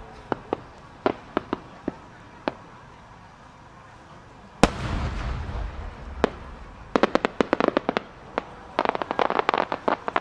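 A 12-inch (size 10) aerial firework shell bursts with one loud boom a little under halfway through, followed by a low rolling echo lasting a second or two. Two quick runs of sharp crackling pops from its small secondary stars come after it. A few scattered single cracks come before the boom.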